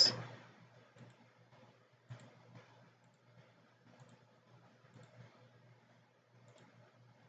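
Faint computer mouse clicks, scattered a second or so apart, over a low steady hum: each click places a line endpoint while sketching in CAD software.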